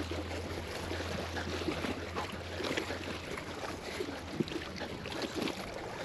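Choppy river water lapping against the rocks of the bank, with wind and a low steady rumble that fades about halfway through. A few faint knocks sound over it.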